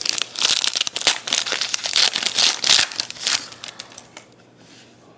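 Trading card pack wrapper crinkling and tearing as it is opened, with dense crackling for about three and a half seconds before it quietens.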